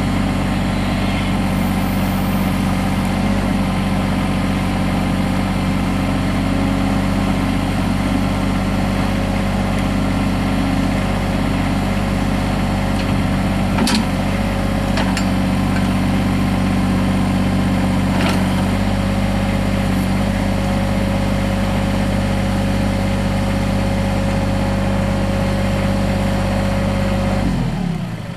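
Mahindra 3616 compact tractor's diesel engine running steadily at a constant speed, with a couple of sharp clanks along the way. The engine sound drops away near the end.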